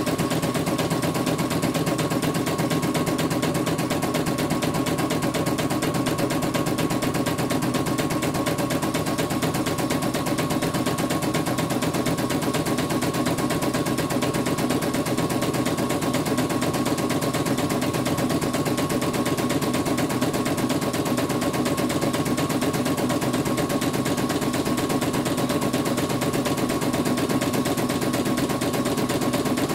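CNY portable computerised embroidery machine stitching a design: a fast, even clatter of needle strokes over a steady motor hum.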